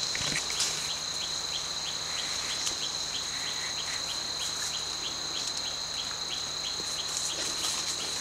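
Rainforest insects droning steadily at a high pitch, with a short chirp repeated about three times a second over the top.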